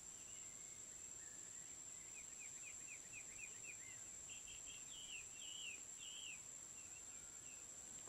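Faint bird song, a quick run of short chirps followed by louder warbled phrases in the middle, over a steady high-pitched drone of insects.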